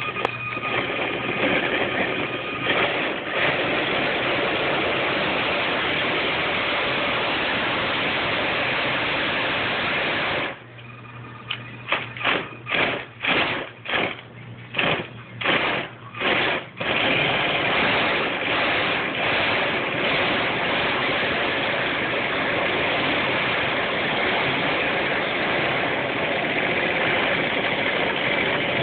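Electric RC car's motor and drivetrain spinning its wheels on the rollers of a homemade roller dyno, running steadily with the rollers vibrating, which the owner puts down to a wobble in the rollers. About ten seconds in it cuts out, then comes a quick string of about eight short throttle bursts before it runs steadily again.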